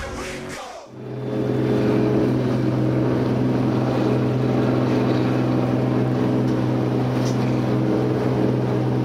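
Music fades out in the first second, then a commercial salmon fishing boat's engine runs steadily at speed, a loud, even drone.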